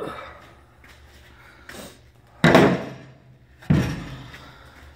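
Two loud metal clunks about a second apart near the middle, each ringing briefly, with a faint knock just before: steel tool box drawers with broken ball-bearing slides being handled and banged.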